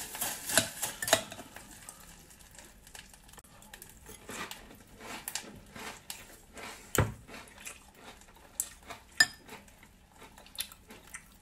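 Metal spoon stirring milk-soaked rice cereal in a glass bowl, clinking against the glass during the first second or so. After that come scattered small clicks and crunches as the cereal is spooned up and chewed, with one sharper knock about seven seconds in.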